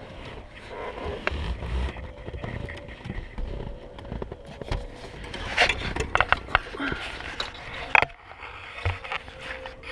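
Irregular clicks, knocks and scraping from hands and a screwdriver working at the plastic retaining tabs of a car's brake light switch under the dashboard. There is a cluster of clicks past the middle and one sharp, loud click about eight seconds in.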